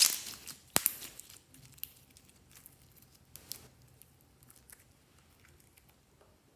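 Glossy slime being handled and mixed: a burst of crinkly, sticky noise at the start, a sharp click just under a second in, then scattered soft sticky pops and crackles.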